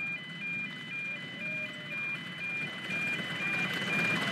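An electronic two-tone warning sounder switching between two high pitches about four times a second, over the low running rumble of a passing miniature steam train.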